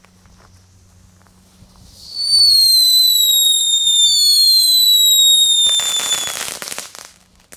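Category 1 Knetterking ground firework going off. About two seconds in it lets out a loud, shrill whistle that slowly falls in pitch, and a second whistle overlaps it. Near the end it breaks into dense crackling.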